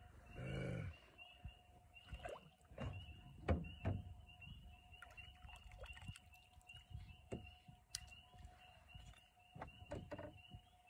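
Scattered knocks and thumps from handling gear in a small fishing boat at night, the loudest about three and a half seconds in. Behind them runs a steady chorus of high, evenly repeated peeps.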